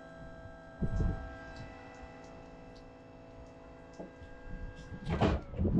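A steady machine hum made of several held tones, fading out about five seconds in, with a heavy clunk about a second in and two louder clunks close together near the end.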